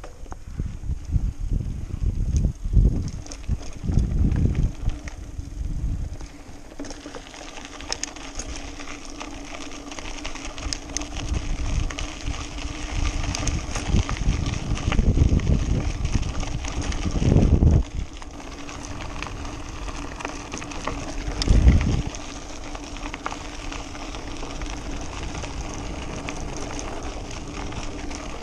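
Mountain bike ridden over a rough, dry dirt and grass track: tyre noise and the rattling and clicking of the bike over bumps. Wind buffets the handlebar-mounted microphone in heavy low gusts at the start, again a little past the middle and once more shortly after.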